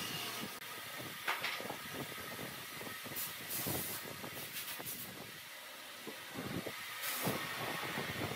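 Wooden table-leg parts being handled, with scattered light knocks and taps of wood on wood. Two short hissing bursts, one about three seconds in as wood glue is squeezed from a bottle onto a tenon, and one near the end as a mortised block is pushed down onto the glued tenon.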